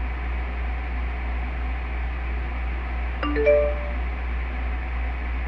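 A short two-note electronic chime about three seconds in, the second note higher, like a computer alert sound, over a steady low electrical hum.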